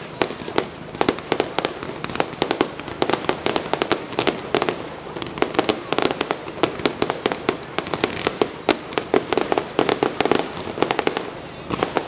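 Fireworks going off in quick succession: a dense, continuous run of sharp bangs and crackles, several a second.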